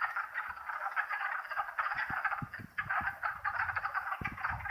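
Wood frog chorus: many frogs calling at once in a dense, continuous stream of rapid, rough clucking calls.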